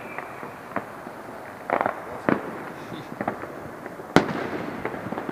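New Year fireworks and firecrackers going off in an irregular string of sharp bangs and pops, with a quick cluster near two seconds in and the loudest single bang a little after four seconds.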